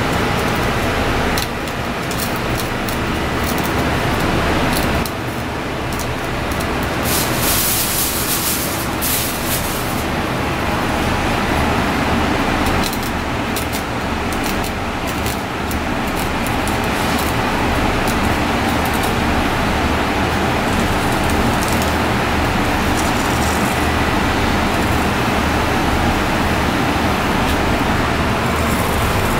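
Steady, loud background noise with a low hum, like traffic or a ventilation fan, with scattered light clicks and a brief brighter hiss about seven to nine seconds in.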